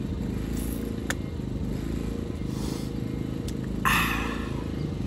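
A steady low engine hum runs throughout. About four seconds in comes a short, loud breathy gasp, an open-mouthed "aah" after a gulp of juice.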